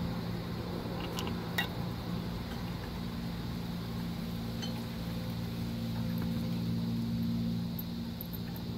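A steady low hum, with a few light metallic clicks about a second and a half in as the drum brake shoe hardware is handled.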